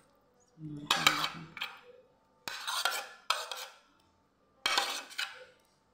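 Metal spoon scraping and clinking against a ceramic dish and a stainless steel tray as a soft minced chicken mixture is scraped out, in three short bouts with a dull knock at the first.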